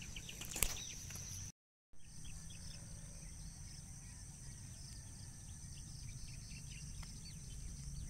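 Open-field ambience: small birds chirping in quick, repeated short calls over a steady high whine and a low wind rumble. A sharp click comes about half a second in, and the sound cuts out completely for a moment just before two seconds in.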